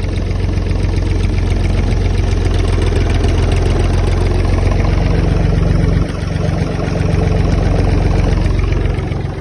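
1981 David Brown 885 tractor's three-cylinder diesel engine running steadily. It dips briefly about six seconds in and eases off near the end.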